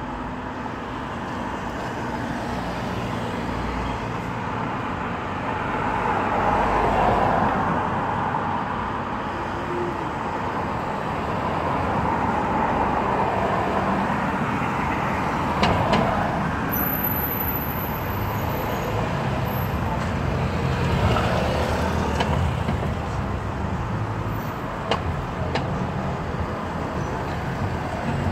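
Road traffic on a city street: cars pass one after another, each swelling and fading, over a steady low engine hum.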